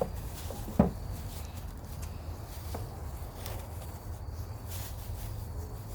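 Hands rummaging through loose potting soil and leaf mulch in a grow bag, with light rustles and scattered soft clicks. There is a single thump a little under a second in.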